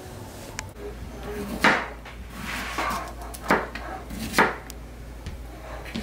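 Knife slicing zucchini on a plastic cutting board: a series of sharp knocks as the blade meets the board, three of them louder, about 1.5, 3.5 and 4.5 seconds in.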